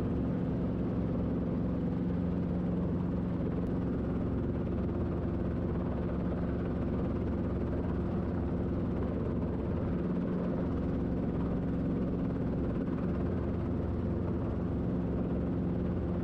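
Robinson R22 Beta II helicopter's four-cylinder piston engine and main rotor running steadily in a hover, heard inside the cockpit as a constant low drone with a steady hum.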